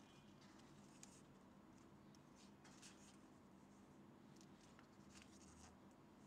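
Faint rustles and soft flicks of paper pages as a hardback book's pages are turned by hand, several times over, above a low steady hum.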